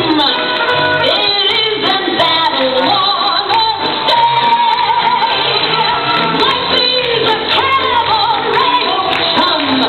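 Loud dance music with a woman singing and a steady beat.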